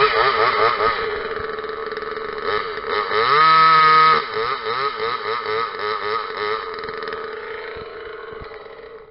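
Parker top-handle two-stroke chainsaw running with a wavering engine note, revved up to a held high pitch for about a second around three seconds in, then dropping back. The sound fades and cuts off at the very end.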